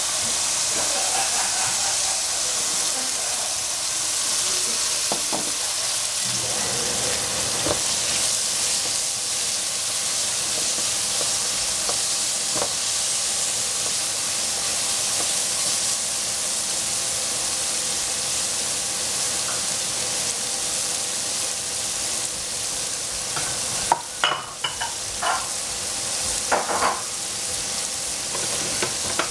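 Strips of capsicum sizzling steadily in a hot non-stick frying pan as they are stirred with a wooden spatula. There are a few sharp knocks near the end.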